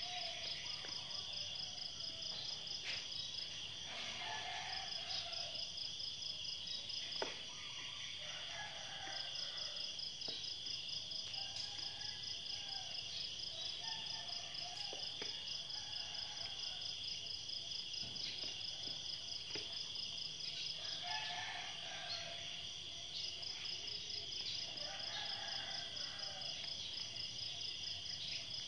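Insects trilling steadily, a continuous high buzz with a faster pulsing chirp above it that stops and restarts a few times. Birds call now and then beneath it, and there is one sharp tap about seven seconds in.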